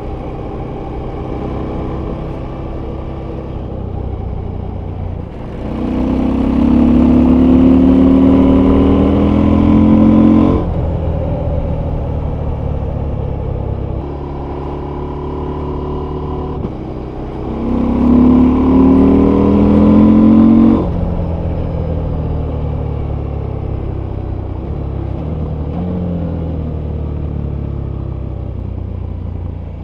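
Husqvarna Norden 901's parallel-twin engine heard from the rider's seat, running steadily, then twice accelerating hard, the exhaust getting much louder and rising in pitch for several seconds before cutting off sharply as the throttle closes.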